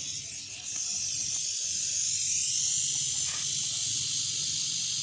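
Steady hiss of compressed air escaping from a homemade air compressor built from a refrigerator compressor, over a low steady hum.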